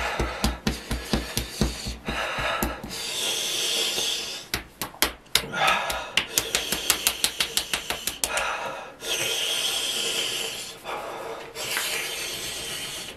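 A man breathing hard through an open mouth, with long hissing breaths in and out, his mouth burning from an extremely hot chip. A drum beat carries on for the first couple of seconds, and a quick run of clicks comes in the middle.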